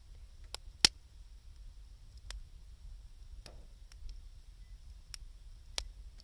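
Wood fire of 2×4 lumber and scrap wood crackling, with scattered sharp pops about once a second, the loudest about a second in, over a low rumble.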